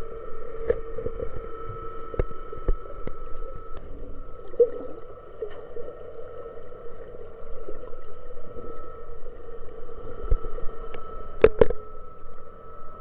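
Underwater recording of a boat's machinery humming steadily through the water as two held tones, with scattered clicks and a sharp double knock near the end.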